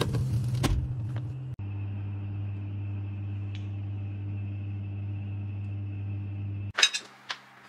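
A steady low machine hum, like a running kitchen appliance or fan, that stops abruptly about a second before the end, followed by a few sharp clicks.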